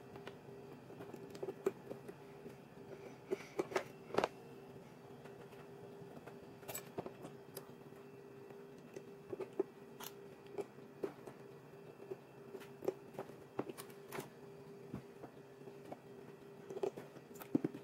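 Hand-stitching a leather scabbard: scattered sharp clicks and soft handling noises as steel needles are worked through the stitch holes and pulled with pliers. A faint steady hum runs underneath.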